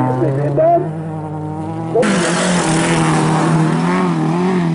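Bilcross race cars' engines running and revving, their pitch rising and falling. About two seconds in, the sound jumps louder, with tyre noise on the loose gravel track as the pack of cars races through a corner.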